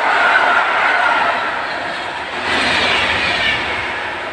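Passenger coaches of a PKP Intercity train rolling past on the rails, with a faint whine sliding down in pitch; a brief brighter rush about two and a half seconds in as the last coach passes, then the noise fades away.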